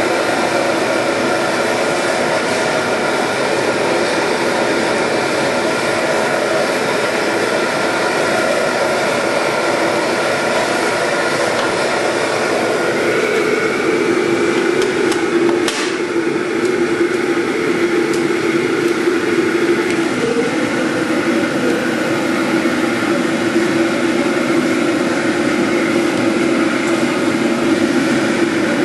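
MSR XGK liquid-fuel camp stove burning steadily at full flame inside an ammo-can engine preheater, a loud, even rush of burner noise with a steady hum from the can and duct. One sharp click comes about halfway through.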